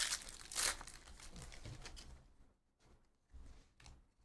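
Foil wrapper of a Panini Prizm soccer card pack being torn open: two loud rips in the first second, then crinkling of the wrapper that fades out about two seconds in. A few soft rustles of cards being handled follow near the end.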